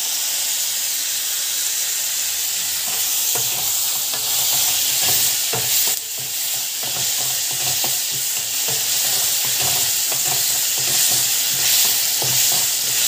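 Chopped onions and tomatoes sizzling as they fry in a metal pan, stirred and scraped with a wooden spatula that gives many small scattered knocks against the pan.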